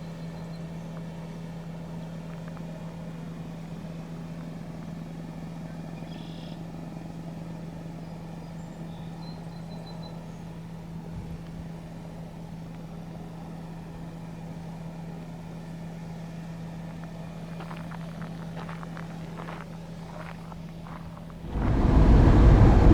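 Steady low hum of a vehicle idling, heard from inside the cabin. Near the end a much louder rushing noise cuts in suddenly.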